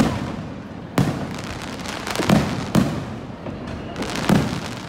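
Aerial firework shells bursting overhead: five sharp booms at uneven intervals, each trailing off in an echoing rumble.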